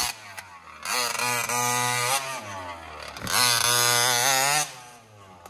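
Two-stroke petrol engine of a large-scale Raminator RC monster truck, revved hard twice for about a second each time. The pitch climbs, holds, then drops back, with quieter running in between.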